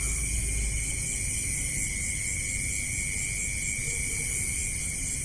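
Steady insect chorus: several shrill high tones held without a break, over a low rumble.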